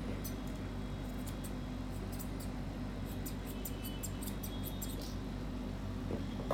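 Grooming scissors snipping through a Maltese's leg fur: short runs of quick, crisp snips, the longest run in the second half, over a steady low hum. A knock near the end.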